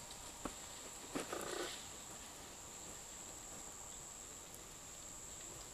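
Quiet forest ambience with a steady, high-pitched insect drone. A few soft clicks fall in the first second and a half, and a brief faint call comes a little over a second in.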